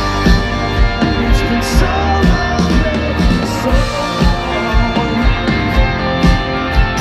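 Rock band playing live, electric guitars and drums with a steady beat of about two hits a second, heard from the crowd.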